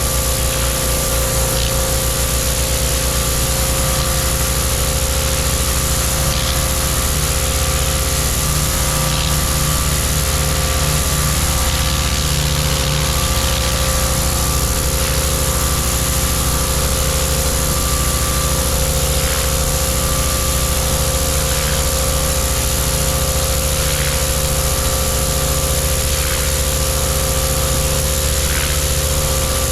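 Gas-engine Stihl RB 400 pressure washer running steadily, with the hiss of its water jet blasting a concrete sidewalk clean.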